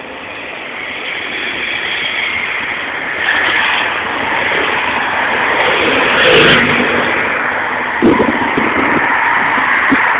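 Race convoy vehicles passing close by, a motorcycle and team cars following the riders, their engine and tyre noise building over the first few seconds. A short sharp click comes about six seconds in, and there is low buffeting near the end.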